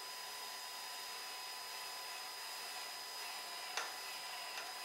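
Cordless drill running steadily with a high whine as it drills out a blind rivet holding a wingtip strobe light, with two short clicks near the end.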